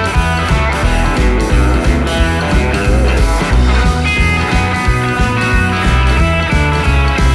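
Background rock music with electric guitar over a steady bass beat.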